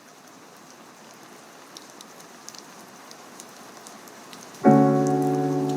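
Steady rain with scattered drops. About four and a half seconds in, a piano chord is struck suddenly, much louder than the rain, and left ringing as it slowly fades.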